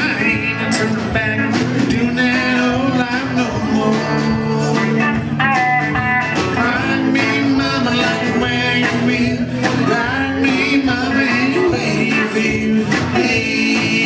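Live country-rock band playing at full volume: electric and acoustic guitars, bass and drums with a steady beat.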